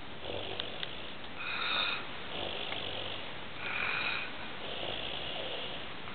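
A person snoring in his sleep: breathy, hissing snores that swell and fade with each breath, loudest a little under two seconds in and again about four seconds in.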